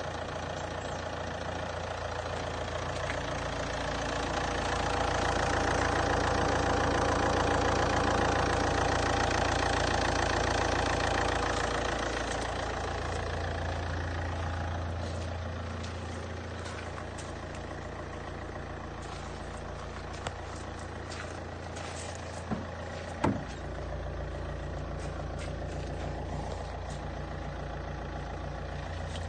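Saab 9-3 1.9 TiD diesel engine running at idle, with its damaged engine ground cable bypassed. It grows louder for several seconds a few seconds in, then settles back to a steady idle, and a few sharp clicks or knocks come near the end.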